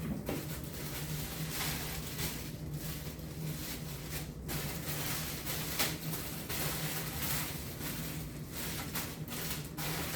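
Packaging rustling and crinkling in irregular bursts as a package is handled and opened, over a steady low hum.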